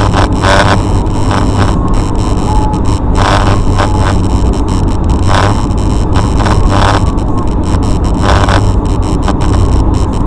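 Steady rumble of a car's engine and tyres on a wet, snowy road, heard inside the cabin. About every two seconds a windshield wiper swishes across the glass with a short, grainy scrape.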